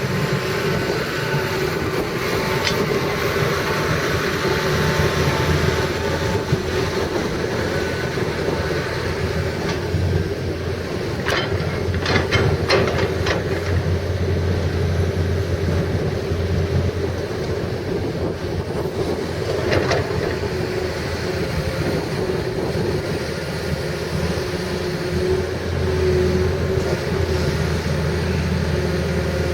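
Hitachi EX300LC-3 excavator's diesel engine running steadily while the machine is worked, with a quick run of sharp knocks about twelve seconds in and another near twenty seconds.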